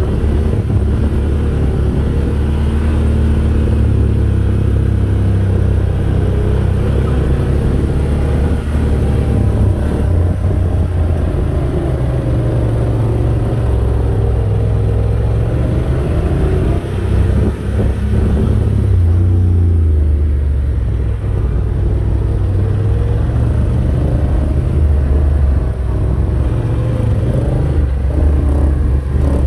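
Quad ATV engines running over sand dunes, a steady low rumble whose pitch rises and falls with the throttle.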